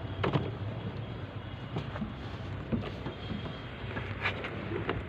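Scattered knocks and clunks of someone climbing into a mini truck's cab and settling at the wheel, over a steady low hum.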